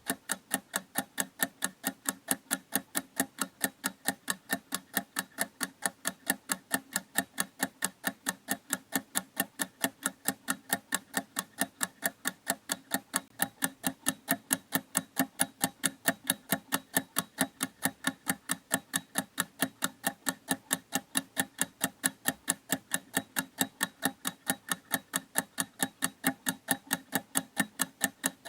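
Clock ticking steadily and evenly, about three sharp ticks a second.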